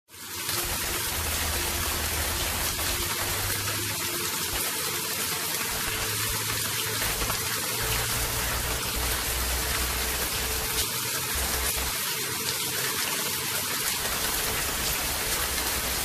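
Steady storm noise, an even rushing hiss like heavy rain, that fades in at the start and holds without change.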